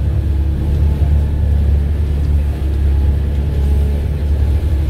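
Boat engine running steadily under way, a loud, even low drone heard from inside the passenger cabin.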